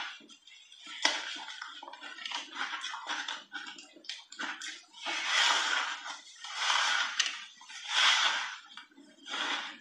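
Close-up chewing of crunchy frozen ice coated in heavy milk powder: a run of small crisp clicks and crackles, then about four louder rushes of noise, each under a second, in the second half.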